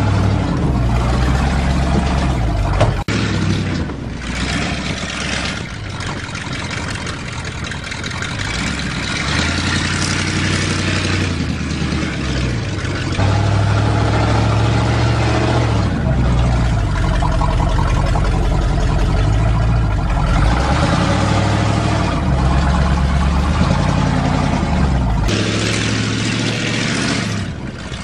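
1977 GMC truck's gasoline engine running soon after a cold start, its revs rising and falling several times. A sharp click sounds about 3 seconds in.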